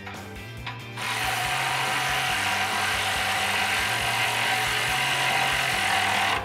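Cordless electric ratchet with a 16 mm socket running a nut down onto a bumper mounting stud: a steady motor whir that starts about a second in and stops abruptly near the end.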